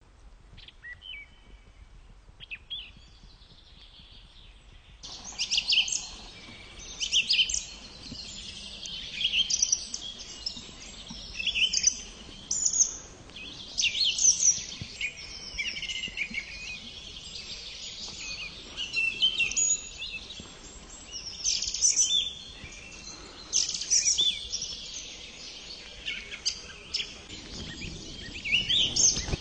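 Song thrush singing: a run of loud, short whistled phrases with brief pauses between them. The song is faint for the first five seconds, then comes in close and clear.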